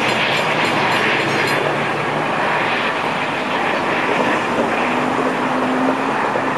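Metra commuter train running away down the track, a steady rumble and wheel clatter that slowly fades.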